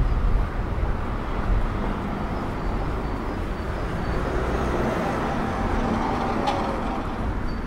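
A car driving past on the street. Its tyre and engine noise swells to a peak about five seconds in, then eases off.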